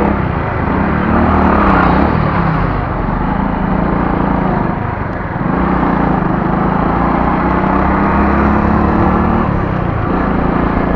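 Motorcycle engine running on the move, its pitch rising and falling in the first few seconds, dipping briefly about five seconds in, then running steadily over road noise.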